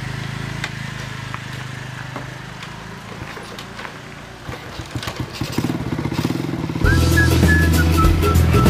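Small motor scooter engine running steadily, then fading away as it rides off. About two-thirds of the way in, louder background music with a high whistle-like melody comes in.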